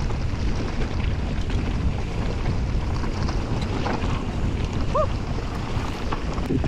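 Wind rushing over an action camera's microphone on a fast mountain bike descent, with the tyres rumbling and rattling over dirt and rock. There is a short high chirp about five seconds in.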